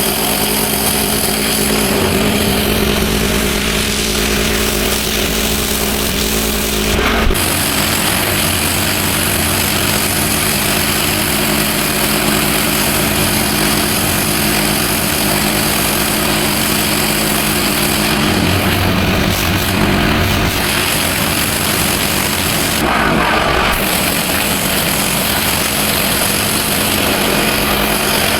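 Petrol pressure washer engine running steadily while its high-pressure water jet hisses against paving. The spray pattern changes briefly a couple of times.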